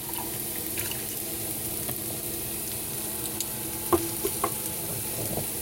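Ground beef sizzling in a frying pan while a milk-and-flour sauce is stirred in a pot, with a few utensil clicks against the pot about four seconds in.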